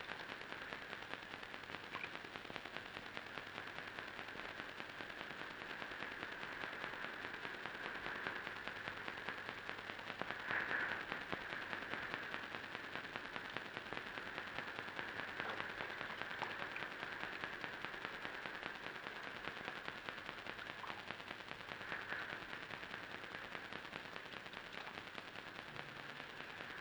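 Faint, steady crackling hiss made of dense, rapid small clicks, swelling slightly a couple of times.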